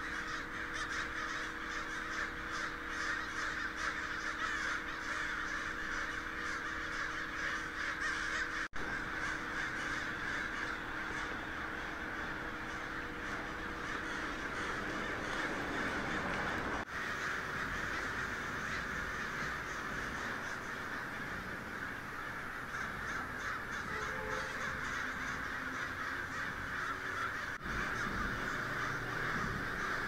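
A large flock of American crows cawing, a dense, continuous chorus of many overlapping calls.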